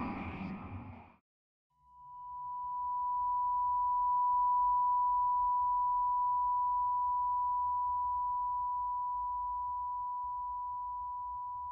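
A passage of electronic music breaks off about a second in. After a short silence a single steady, pure electronic tone fades in, holds and slowly fades away over a faint low hum.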